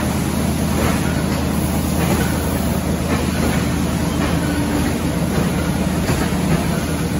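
Steady drone of running factory machinery: a constant low hum under an even mechanical noise, with no breaks or single knocks.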